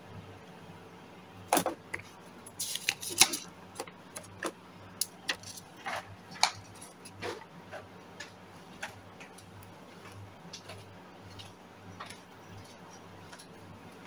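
Handling noise at a tabletop: a run of sharp clicks and rustles, loudest around the third second, as a sticky note and a multi-colour ballpoint pen are taken up, then sparse faint ticks and scratches of the pen writing on the sticky note.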